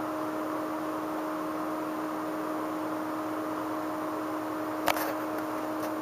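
Steady low room hum with two faint constant tones, broken by one sharp click about five seconds in and a few fainter ticks after it.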